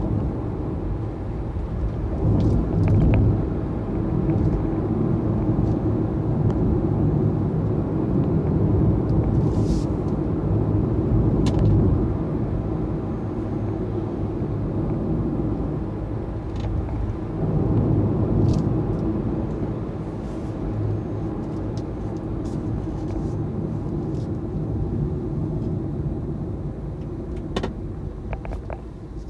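Road and tyre noise heard inside the cabin of a Hyundai Ioniq Electric driving at about 60 to 75 km/h: a steady low rumble that swells and eases with the road surface, with no engine sound since the car is electric.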